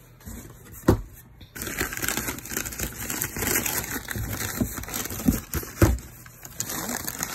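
Cardboard box flaps being moved and newspaper packing crinkling as wrapped items are handled, with a sharp knock about a second in and a couple more knocks later.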